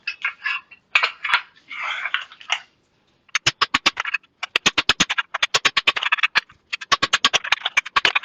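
Rapid, sharp blows on hot steel, in three quick runs with short pauses between them, typical of hammering a billet at the anvil; this comes after a few short scraping, rushing noises.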